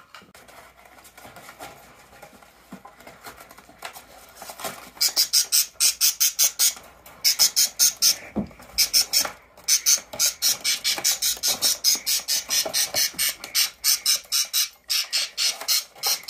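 Budgies chirping in a rapid run of short, sharp, high-pitched calls, about five a second, starting about five seconds in after a few seconds of quiet rustling and clicks.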